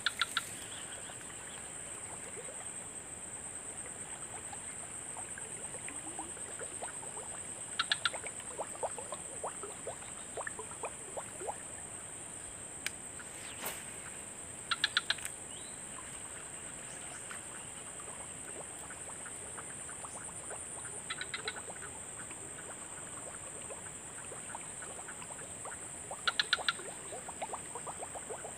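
Steady high-pitched insect drone, with a frog calling four times, about every six seconds, each call a short train of rapid croaking pulses.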